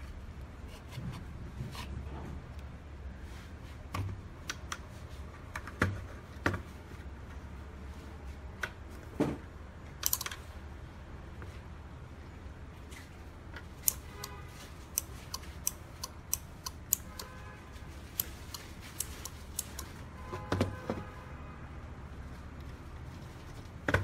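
Hands setting a small robot board down with a few knocks, then a run of sharp clicks as the relays on a 12 V radio-control relay board switch while the transmitter sticks are moved. A low steady hum runs underneath.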